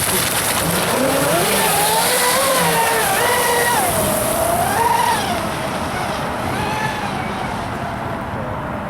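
Zelos twin-motor electric RC boat running: a motor whine that rises and falls with the throttle over a high hiss, the hiss dropping away about six seconds in.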